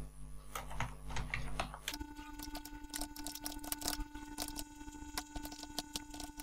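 Computer keyboard typing: key clicks in quick, irregular runs as a line of text is entered.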